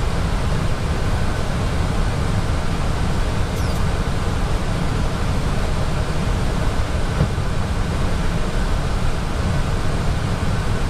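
Steady cockpit noise of an Airbus A320 in descent: airflow around the cockpit and the air-conditioning supply, heard as an even low rumble under a fainter hiss.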